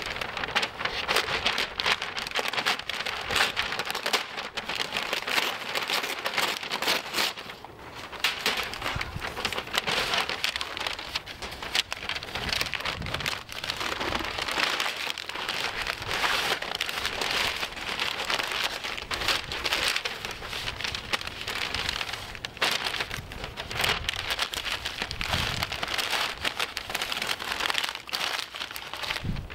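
Pink butcher paper crinkling and rustling as it is folded and wrapped tightly around a rack of smoked pork ribs, a dense crackle with a short lull about eight seconds in.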